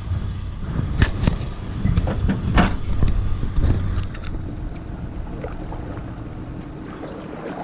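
Kayak being launched and paddled: several hollow knocks of the paddle or gear against the hull in the first few seconds, over a low rumble of wind on the microphone, then a steadier quiet wash of wind and water.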